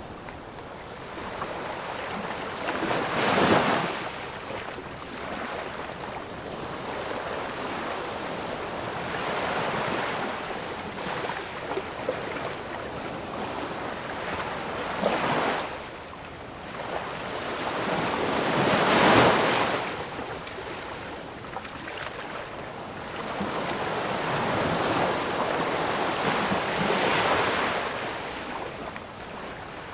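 Ocean surf: waves breaking and washing in slow, uneven swells, with four louder breakers, the loudest a few seconds in and just past the halfway point.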